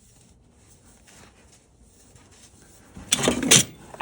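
Faint handling noise while the new oil filter is twisted on by hand. About three seconds in comes a short, loud scuffing noise in two quick pulses.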